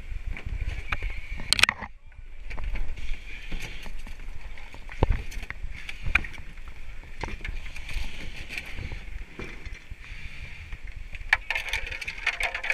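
Kayak hull and paddle knocking and scraping against rocks as the boat is carried and set down, over the steady rush of whitewater rapids, with wind buffeting the helmet-mounted microphone.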